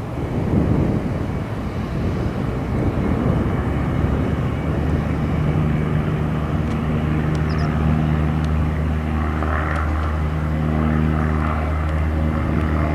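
Propeller aircraft engine running: a rumbling noise at first, then a steady low drone with an even pitch settles in about a third of the way through.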